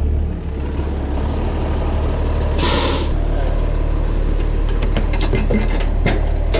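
Diesel truck engine idling with a short, loud air-brake hiss about two and a half seconds in, then a run of sharp metallic clicks and clanks.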